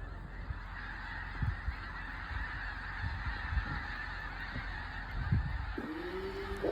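A large flock of geese calling overhead: a dense, continuous chorus of honking. Near the end, a held low musical note comes in.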